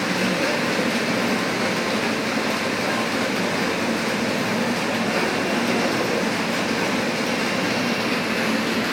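Jacquard knitting machine running steadily, a constant even mechanical clatter and whir with no starts, stops or changes.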